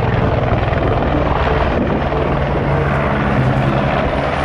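Light single-rotor helicopter flying low and hovering: a steady, fast beating of the rotor blades over the running engine's steady hum.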